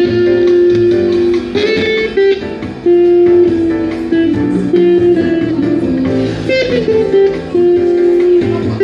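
Guitar played by a busker: a slow melody of held single notes, with a few notes bent in pitch, over lower bass notes.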